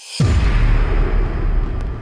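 Cinematic logo-reveal sound effect: a swelling whoosh that breaks into a sudden deep boom just after the start, followed by a long rumbling, hissing tail.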